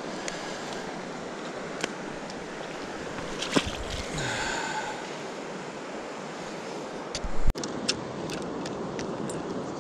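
Steady rush of river water, with a splash about three and a half seconds in as a caught bass is dropped back into the water. A loud knock comes about seven and a half seconds in, followed by a string of light clicks as the rod and baitcasting reel are handled.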